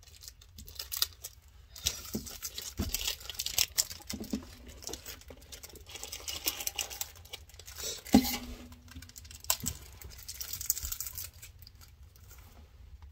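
Clear plastic wrapper on a trading card being crinkled and torn open by hand, an irregular scratchy rustle. One sharp knock about eight seconds in is the loudest sound, and the rustling eases off near the end.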